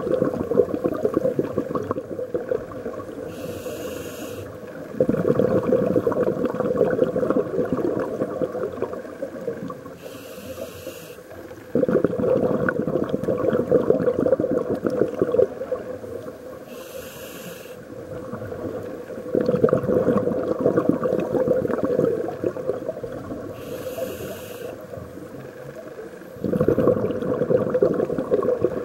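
Scuba diver breathing through a regulator, heard underwater: a short hiss on each inhale, then several seconds of crackling exhaled bubbles. Four breaths, about one every seven seconds.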